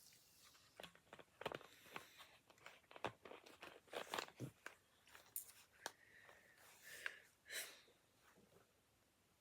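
Quiet clicks and gulps of a person sipping water through a straw, a cure for hiccups, with a short breathy burst near the end.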